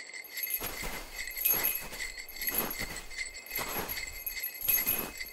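A jingle bell jingling with a steady ring, over a row of soft strokes about two a second, like footsteps.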